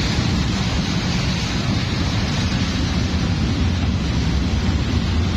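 A long train passing close by, with a steady, even rumble.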